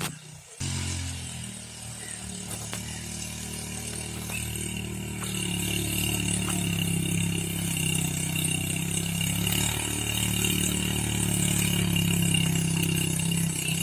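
ATV engine running steadily; the sound cuts in abruptly about half a second in, and from about five seconds in it gets louder with a higher whine added.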